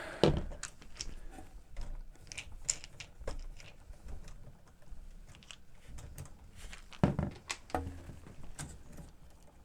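Scattered small clicks, taps and scrapes of a slotted screwdriver working on the motor screws of a cassette deck's transport, with a few louder knocks about seven seconds in.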